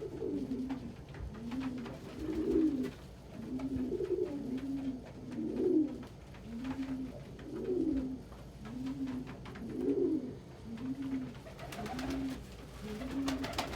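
Domestic pigeons cooing indoors: a steady run of low, arching coos, about one a second, with some notes rising higher than others.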